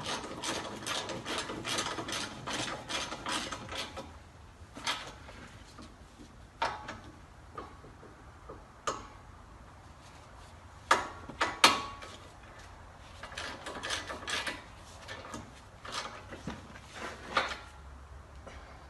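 Ratchet wrench clicking in quick runs for the first few seconds, then scattered metallic clicks and knocks of tools and parts being handled.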